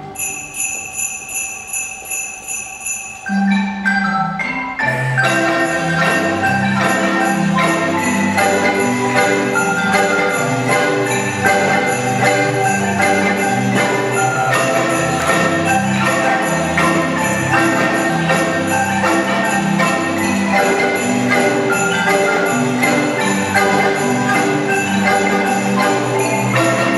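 Several Guatemalan-style wooden marimbas played together, with jingle bells ringing along. After a quieter opening of ringing bells and light notes, the full ensemble with its low bass notes comes in about four seconds in.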